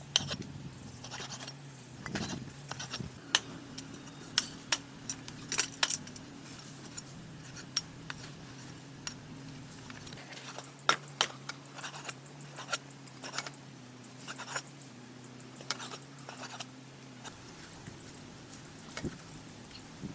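Scattered sharp clicks and clinks over a low steady hum; from about halfway, short trains of fast, very high-pitched chirping pulses repeat every second or so.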